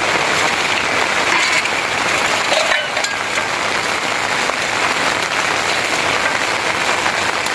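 Steady heavy rain falling on surfaces, an even, dense hiss.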